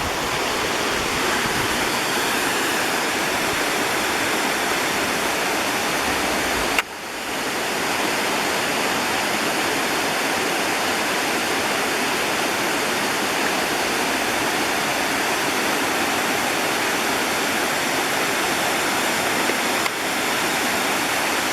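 Indian Creek Falls, a waterfall, pouring with a steady rush of water. There is a brief drop in level about seven seconds in.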